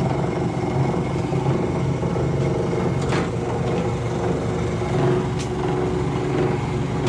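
1955 Diamond horizontal milling machine running steadily, a continuous mechanical hum with a faint high whine, and light ticks about three and five seconds in.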